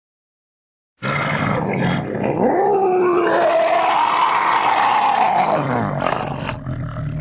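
Cartoon Chupacabra monster sound effect: after a moment of silence, one long roar whose pitch rises and then falls, lasting about six seconds.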